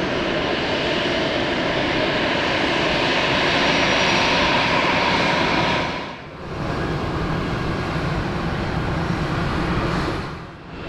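Airbus A320 jet airliner's CFM56 turbofan engines at close range during landing: a loud, steady rush of jet noise that dips briefly about six seconds in and again near the end before coming back.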